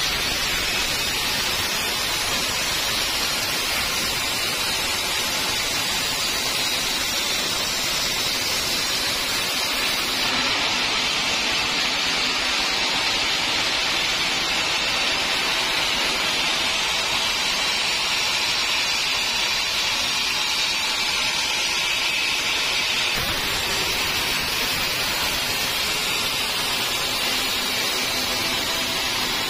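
Large sawmill band saw cutting lengthwise through an old teak log, a steady hissing rush of the blade in the wood.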